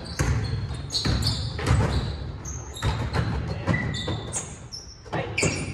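Basketball bouncing on a hardwood gym floor, a string of irregular thuds that echo around the hall, mixed with short high sneaker squeaks.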